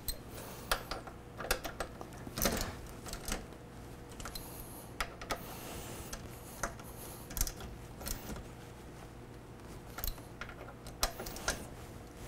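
Socket ratchet clicking in short, irregular runs while tightening the mounting bolts of a motorcycle's front brake caliper.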